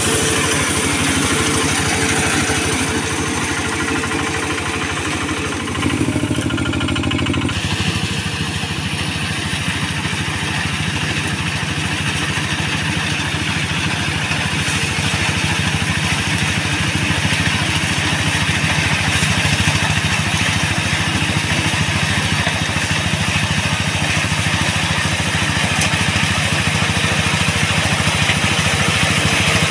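Quick QH-11 combine harvester running steadily, its engine and machinery making a continuous mechanical drone, with a brief change in tone about six seconds in.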